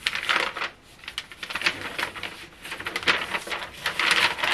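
Paper sewing pattern piece rustling and crinkling in irregular bursts as hands smooth it and lift it off the fabric.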